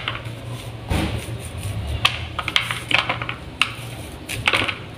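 A knife slicing kernels off an ear of sweet corn, giving irregular short scrapes and clicks as the blade cuts along the cob and loose kernels drop onto a plastic plate.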